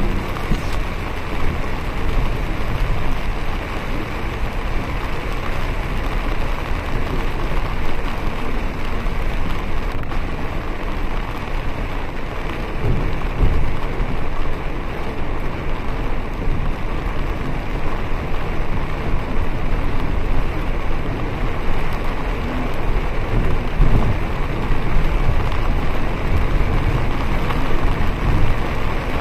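Heavy rain beating on a moving bus, mixed with the bus's engine and tyre noise on a wet road: a steady, even rushing with a low rumble underneath.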